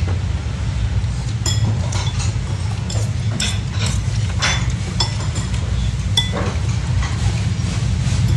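Cutlery clinking against dishes during a meal: about a dozen light, ringing clinks at irregular moments, over a steady low hum.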